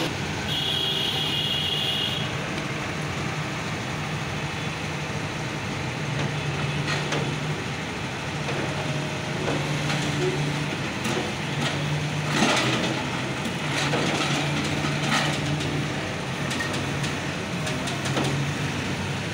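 Diesel engine of a Hyundai crawler excavator running under load, its drone swelling and easing every second or two as the hydraulics work the arm. Scattered clanks and scrapes of the bucket in earth and broken brick, most frequent in the middle stretch.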